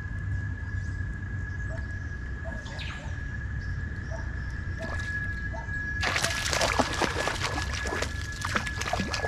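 A tararira (Hoplias malabaricus) striking a surface frog lure and thrashing in the water: a sudden burst of splashing about six seconds in that keeps going. A steady high tone runs underneath throughout.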